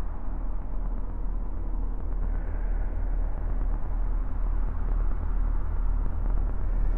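A steady low rumbling drone, heavy in the deep bass, running on without any distinct events: the ambient rumble of horror film sound design.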